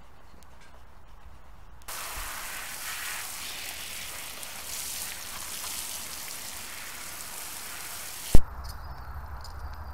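Hose spray nozzle jetting water onto a horse's wet leg feathers and the ground: a steady hiss that starts suddenly about two seconds in. It ends sharply near the end with a single loud knock.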